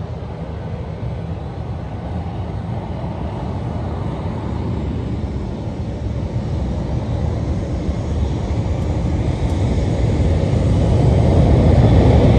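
Jet engine rumble from a Southwest Boeing 737-700 and its CFM56-7B turbofans, a steady low roar with a hiss above it that grows gradually louder throughout as the aircraft approaches.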